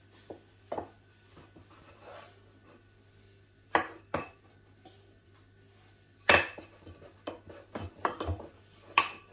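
Scattered knocks and clatters of a rolling pin and kitchen utensils on a countertop as dough is rolled out. There are about ten sharp hits, the loudest about six seconds in.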